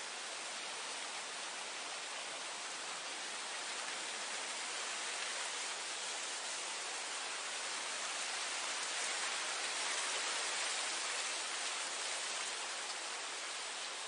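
Wind blowing through grass: a steady, even hiss that swells gently about two-thirds of the way through, then eases off.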